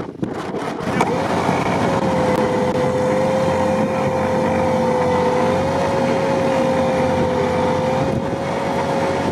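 Modified ZAZ Zaporozhets car's engine revved hard in deep swamp mud and water, held at high, nearly steady revs from about a second in, with a steady high whine over the noise.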